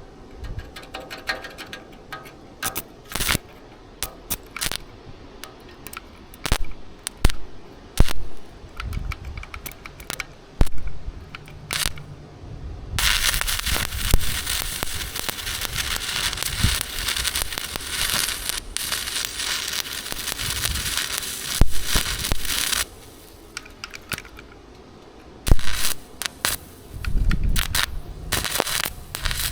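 Electric welding arc crackling steadily for about ten seconds in the middle, after a stretch of scattered sharp clicks and knocks; shorter bursts of crackle return near the end.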